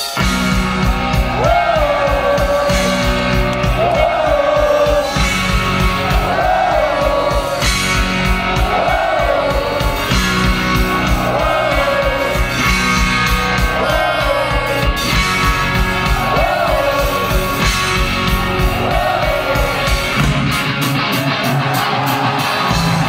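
French hard rock band playing loud live rock through a concert PA, a melodic phrase repeating about every two seconds over heavy bass and drums. The bass and drums drop out about 20 seconds in.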